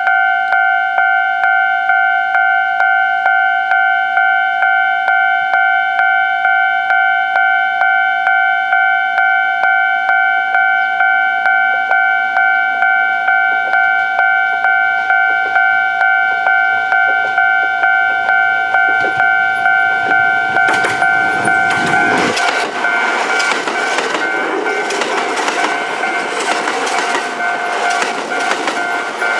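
Japanese level-crossing warning bell ringing at about two strokes a second. About 20 seconds in, a Kintetsu 30000-series train coupled to a 12200-series set passes over the crossing, and its running noise and wheel clatter swamp the bell, which keeps ringing beneath.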